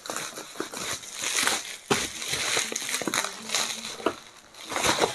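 Plastic packaging crinkling and rustling as it is handled and pulled open, with many small clicks and taps, fading near the end.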